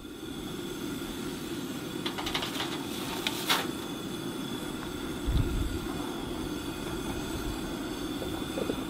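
Steady rumbling of a pot of dinner cooking on a stove, with a sharp clink about three and a half seconds in and a low thump a couple of seconds later.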